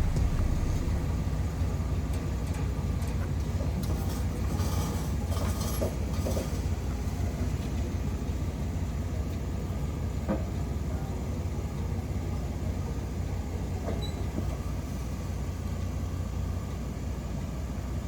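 Steady low rumble of a running vehicle, with a few light rattles and clicks about a quarter of the way in.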